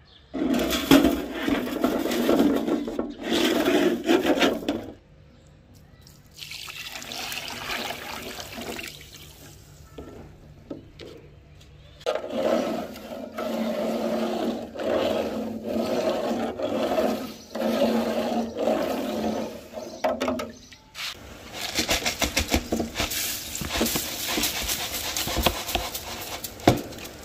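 Water gushing and splashing into a shallow tray of rifle parts in several pours with pauses between them, ending in a spell of crackling splashes.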